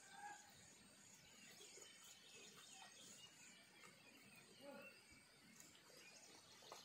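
Near silence, with faint scattered bird chirps.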